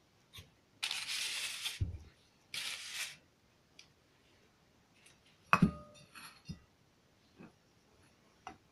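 Two short hisses, then a sharp metallic clink with a brief ringing tone about five and a half seconds in, followed by a few lighter clinks, as metal pliers and a screw knock against a hard surface.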